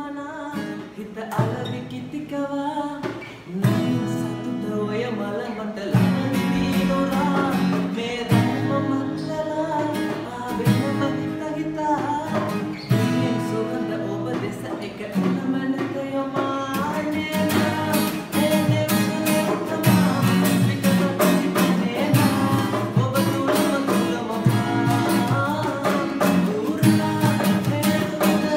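A man singing a Sinhala pop song to the accompaniment of acoustic guitars strumming chords.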